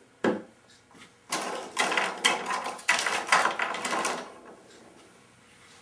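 Rapid mechanical clicking and rattling for about three seconds, from small bar clamps being picked up and worked, after a single sharp click about a quarter-second in.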